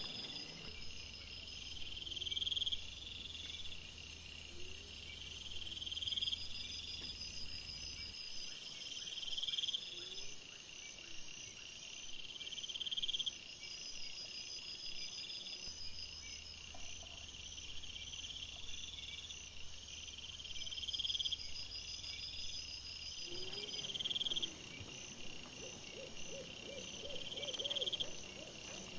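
Night insects, crickets, chirping: a high, rising chirp repeats every second or two over a steady high trill.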